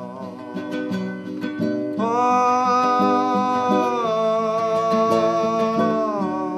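Acoustic guitar strummed in a steady rhythm under long held wordless sung notes that slide to a new pitch about every two seconds.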